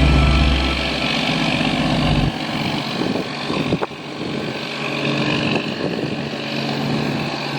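A steady low engine hum with outdoor noise. It cuts off abruptly about two seconds in, and a lighter hum comes back later.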